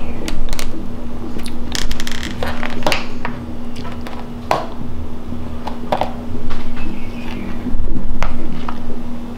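Plastic tub lid being peeled and prised open slowly: a string of irregular plastic crackles and clicks.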